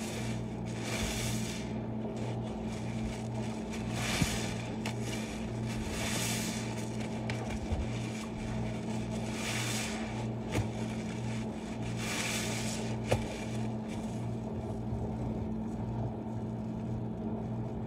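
Soapy bath sponge squeezed in thick suds by rubber-gloved hands: five wet squelching swishes a few seconds apart, with a couple of small clicks, over a steady low hum.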